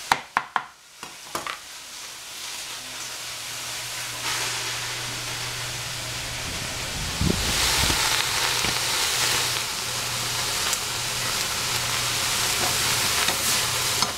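A few sharp knocks at the start, then food sizzling as it fries in a hot pan, the sizzle building over the first several seconds and then holding steady, with a low steady hum underneath from about three seconds in.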